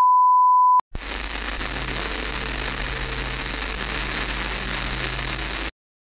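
Test-pattern tone, a single steady high pitch, cuts off under a second in. After a brief gap comes television static hiss with a faint low hum under it, which runs for about five seconds and stops abruptly.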